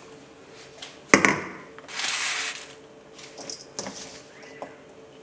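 Hammered steel bowl set down on a stone kitchen countertop: one sharp knock about a second in, then a short hissing rustle and a few light clicks of handling.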